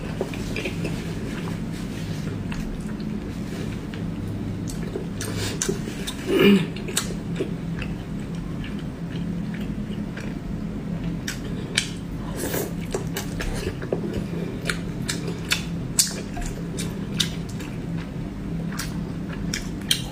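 Chewing and biting into fried pork, with many short, irregular crunchy clicks and the odd light tap of chopsticks or a dish. There is a steady low hum underneath, and one brief, louder pitched sound about six and a half seconds in.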